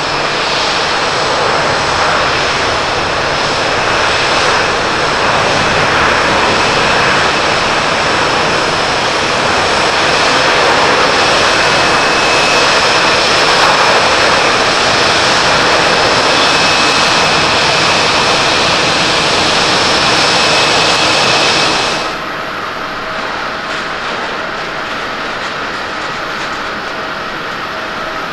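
Airbus A330-900 jet engines roaring on the landing rollout just after touchdown, the noise building and holding loud as the airliner decelerates, typical of reverse thrust. About 22 seconds in it cuts to a quieter, steadier hum of a Boeing 787-8 jet airliner on final approach.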